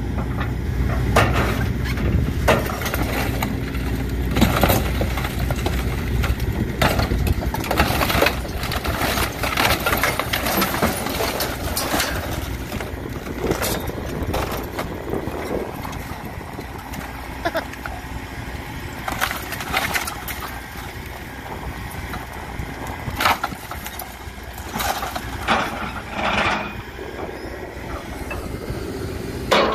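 Excavator's diesel engine running under load while its grapple crunches and tears through the wreck of a scrapped motorhome: repeated cracking and crashing of metal and wood. The engine rumble is heaviest in the first half.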